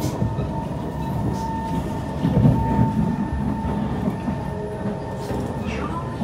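Interior of a Kawasaki C151 metro train running on the track: a steady low rumble of wheels and car, with a thin steady whine on top.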